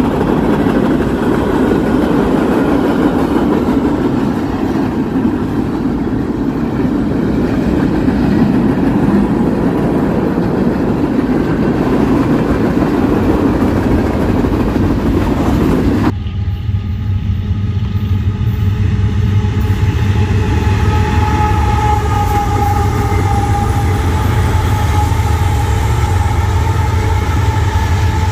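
Train passing on the rails, a steady rumble and rush of wheel noise. About 16 seconds in it cuts abruptly to a diesel locomotive running, a steady low drone with a steady whine above it.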